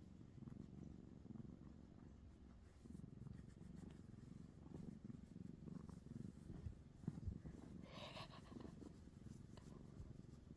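Domestic cat purring close by, a faint low rumble that swells and eases with each breath. A short higher sound cuts in about eight seconds in.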